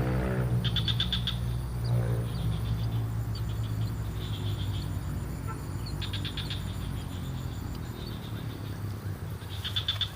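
Wild animal calls: short bursts of rapid, high-pitched pulsed chirps, repeating several times, over a steady low hum. A low droning sound fades out right at the start.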